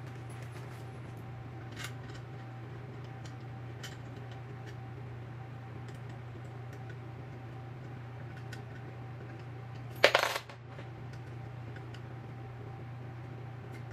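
A small metal part drops onto the wooden floor about ten seconds in, clattering and ringing briefly as it bounces. Quiet clicks of parts being handled and a steady low hum sit underneath.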